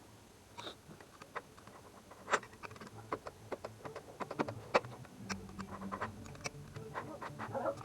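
Hand tools and metal engine parts clicking and tapping in an irregular series of light knocks during motorcycle engine reassembly, with two sharper knocks about two and a half and five seconds in.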